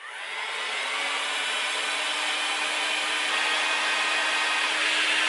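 Electric heat gun running, its fan blowing a steady rush of air over a low motor hum; it builds up over the first second as it spins up. It is being used to shrink heat-shrink tubing.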